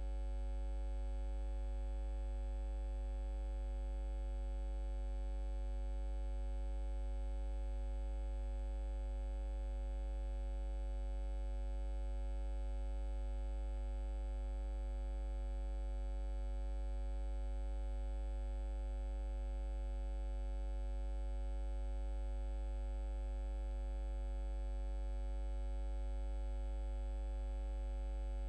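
A steady low hum with a buzz of overtones that never changes, most likely electrical hum on the recording.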